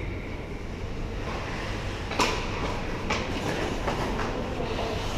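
Ice hockey sticks and puck on a rink: one sharp clack about two seconds in, the loudest sound, then a couple of lighter clacks, over the steady scrape of skates on the ice.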